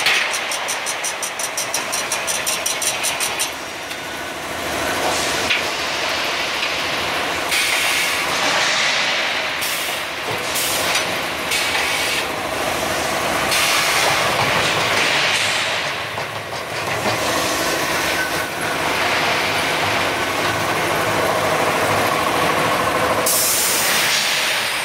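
Automatic rebar processing line running: steel bars clattering and rattling on the powered roller and chain conveyors. A quick even clatter, about six knocks a second, runs for the first three seconds or so, and a few short hisses come through, one about eight seconds in and another near the end.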